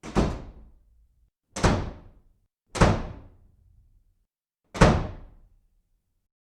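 Four loud, sharp thuds like slams or heavy knocks, irregularly spaced over about five seconds, each dying away quickly into silence.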